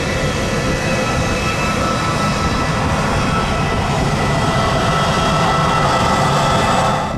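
Boeing 747-400 freighter's four jet engines running as it lands: a loud, steady jet rumble with a high whine of several steady tones over it. It cuts off suddenly near the end.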